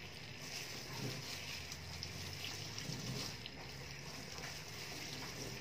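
Tap water running steadily into a stainless steel sink, splashing over a gloved hand that squeezes and rinses an ink-soaked sponge pad.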